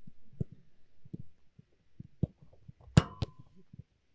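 Scattered low, dull thuds, then about three seconds in a sharp clang with a brief metallic ring and a second knock just after: a football striking the metal goal frame during shooting practice.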